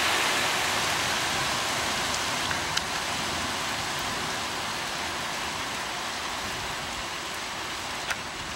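Thunderstorm rain falling steadily, a dense hiss with a few sharp drip ticks, slowly easing off.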